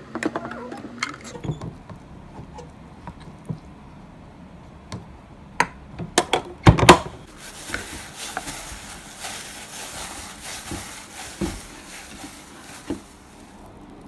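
A rice paddle scraping and knocking against a cooking pot while cooked rice is scooped out, with a few sharp clacks about seven seconds in. After that comes a steady crinkling rustle as plastic-gloved hands work the rice in a stainless steel bowl.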